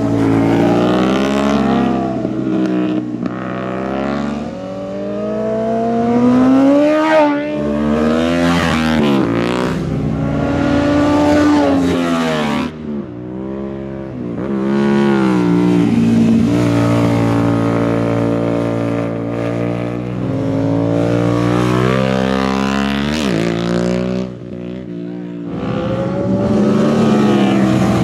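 Sport motorcycles, among them a Suzuki SV1000 V-twin, passing one after another through tight curves. The engines rev up and down as the riders shift and accelerate out of the corners, with short lulls between passes.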